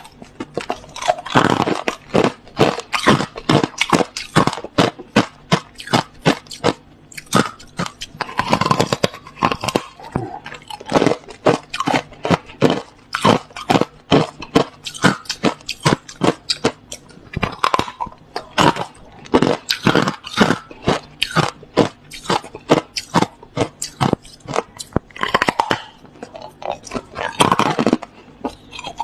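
Hard, clear crushed ice being bitten and chewed close to the microphone: rapid, irregular crunches, several a second, with no pause.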